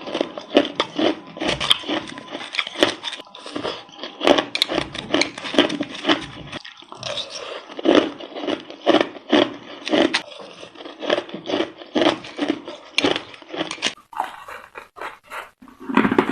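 Crushed ice crunching between the teeth, one crisp bite after another, about two to three crunches a second.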